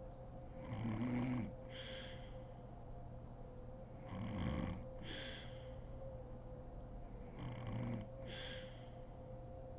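A sleeping woman snoring: three snores about three and a half seconds apart, each followed by a short breathy exhale, with a faint steady hum behind them.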